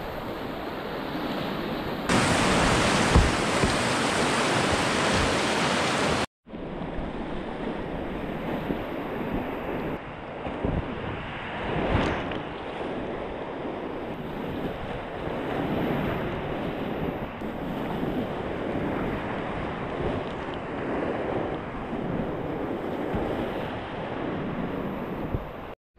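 Whitewater rapids rushing past the kayak, a steady roar of churning creek water close to the microphone, with water splashing over the boat and onto the camera about halfway through. The sound is louder for a few seconds near the start and breaks off for an instant twice.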